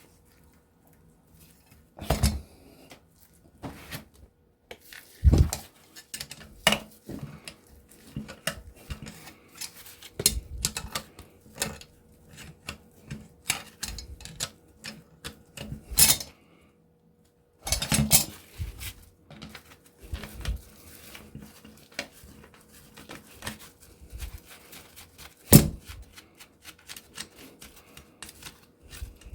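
Metal hand tools clinking, clicking and knocking against a refrigerator compressor's steel casing and bolts as it is taken apart, irregular taps with a few louder knocks.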